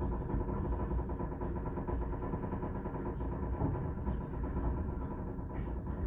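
Diesel train moving slowly out of a station, heard from the rear carriage: a steady engine drone over a low rumble.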